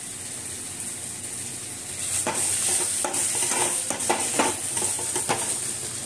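Onion-tomato masala with black pepper sizzling in a stainless steel kadai, joined about two seconds in by a steel spatula scraping and stirring it in repeated strokes against the pan.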